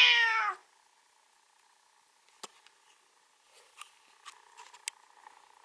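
A cat's meow, one falling call that ends about half a second in, followed by a few faint clicks. The owner wonders whether the cat is hungry.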